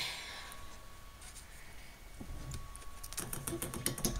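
Faint, scattered light clicks and rustling from guinea pigs moving about their cage, growing denser in the last second.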